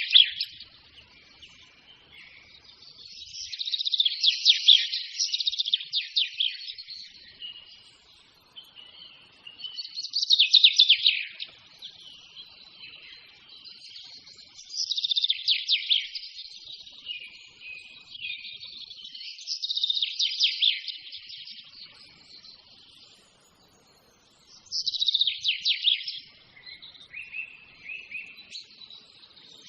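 A songbird singing: rapid trilled phrases of high notes about two seconds long, repeated roughly every five seconds, with softer chirps in between.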